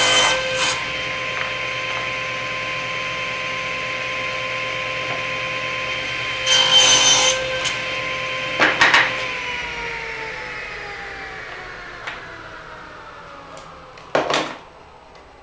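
Table saw running with a steady whine while its blade cuts through wood in short loud passes, near the start and twice about two-thirds of the way in. It is then switched off and spins down, its pitch falling as it slows, with a short scraping burst near the end.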